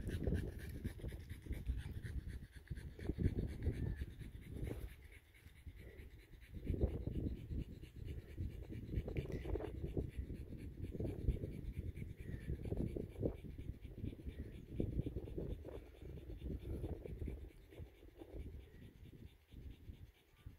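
A dog panting, in uneven repeated breaths.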